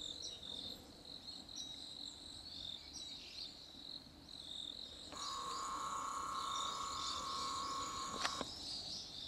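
Insects chirping steadily in high, rapid trills. About five seconds in, a steady high tone with overtones comes in, holds for about three seconds and stops with a faint click.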